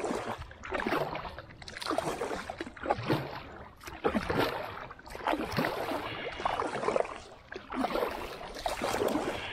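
Double-bladed kayak paddle strokes dipping and splashing in river water, alternating sides in a steady rhythm of about one stroke a second.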